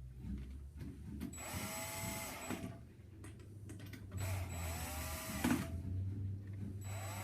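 Power drill driving screws in three short runs, the motor speeding up and slowing down each time, with the screws run in short of fully tight.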